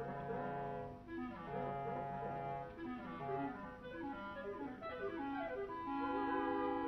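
Orchestral ballet music: a slow melody carried by woodwinds over held notes, swelling somewhat near the end.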